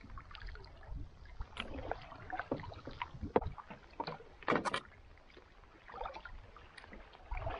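Canoe paddle strokes: the blade dipping and pulling through the water, with short splashes and drips at irregular intervals.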